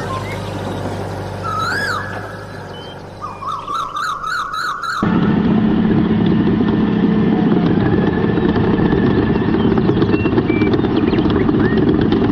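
A warbling, siren-like tone that wavers up and down. About five seconds in it cuts off abruptly, and a steady, rough engine-like drone takes over.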